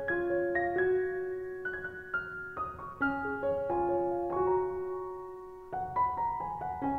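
Background music: a solo piano playing a slow, gentle melody of single notes over held chords, with a short lull and a new phrase starting near the end.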